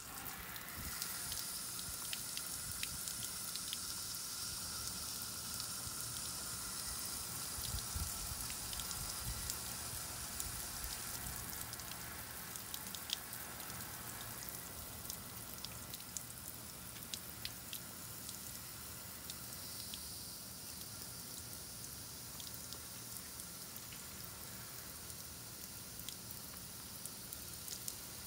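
Heavy rain falling, a steady hiss with many individual drops tapping. It eases slightly after about twelve seconds.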